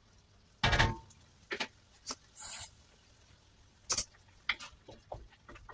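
A spatula knocking and scraping in a wok of curry. There is one loud clank with a brief ring about a second in and a short scrape in the middle, with scattered lighter taps and clicks around them.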